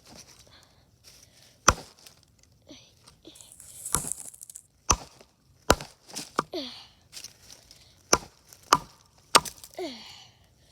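Axe blade chopping into a log: about seven sharp strikes at uneven spacing, a few coming in quick pairs.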